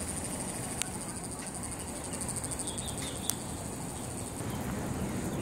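Insects chirring in a steady, high-pitched, rapidly pulsing trill that stops a little over four seconds in. Two short sharp clicks come about one and three seconds in.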